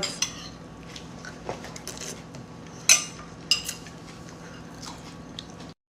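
Quiet room background with a faint steady hum, broken by a few sharp clinks, the loudest about three seconds in and another half a second later; the sound cuts off abruptly near the end.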